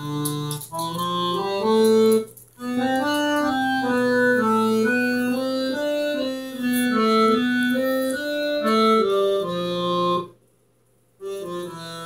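Electronic home organ played by hand: a slow melody of held notes stepping up and down over sustained lower notes. The playing breaks off briefly about two and a half seconds in, and again for about a second near the end, before it resumes.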